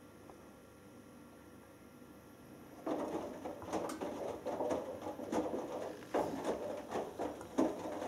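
Hoover Dynamic Next front-loading washing machine's drum starts turning about three seconds in: wet laundry and water sloshing and tumbling in irregular swishes.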